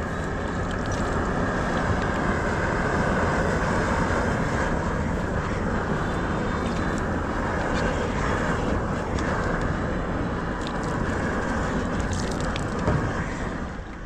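Gas torch burning with a steady roar, the kind used to heat and lay torch-on bitumen (Izogam) roofing membrane.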